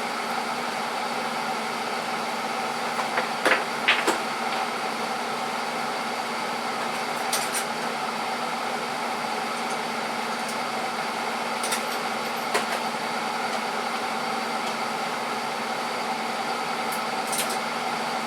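Steady mechanical hum made of several constant tones, like a running fan. A quick cluster of light clicks and knocks comes about three to four seconds in, with a few single clicks later on.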